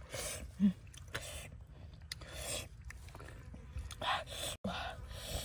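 A person eating fish with a spoon: chewing, with short sharp breaths about once a second and a brief hummed "mm" under a second in.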